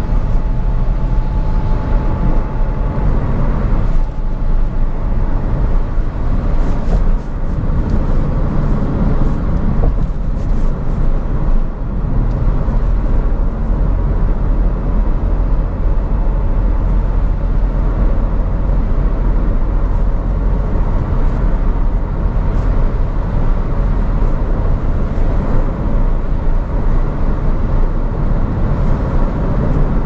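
Car driving along a road: a steady low rumble of engine and tyre noise, with a faint steady tone over it for the first few seconds.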